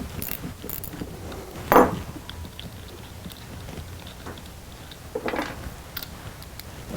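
Metal hand tool and parts clinking while the 13 mm nut is taken off the power-cable post of a starter solenoid: scattered light clicks with two louder clanks, about two seconds in and about five seconds in.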